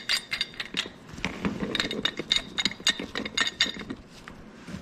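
Metal tools and threaded gas pipe fittings clicking and clinking as the pieces are cranked together with a wrench, in a quick irregular run of ringing metallic clicks that dies away near the end.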